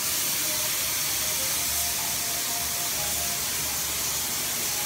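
Air-fed paint spray gun hissing steadily while spraying paint.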